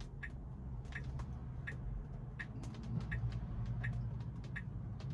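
Tesla's turn-signal indicator ticking steadily, about three clicks every two seconds, over a low rumble in the cabin. A passing car swells the rumble about three seconds in.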